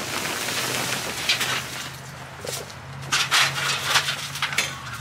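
Plastic tarp cover of a portable garage rustling and crinkling as it is handled, in irregular crackly bursts, over a low steady hum.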